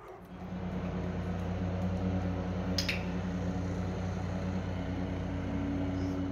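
A steady low mechanical hum with a few held tones, and a single sharp click a little under three seconds in.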